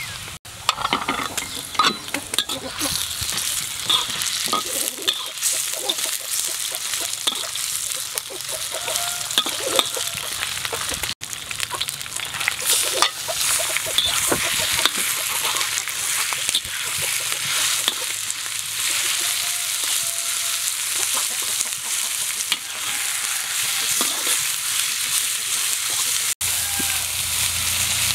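Chopped garlic sizzling in hot oil in a wok, then minced pork frying, with a metal spatula scraping and clinking against the wok as the food is stirred.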